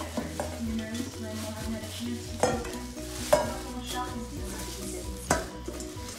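Clear plastic wrap crinkling and rustling as it is pulled off stainless steel mixing bowls. Three sharper, louder crackles stand out, the loudest about three seconds in.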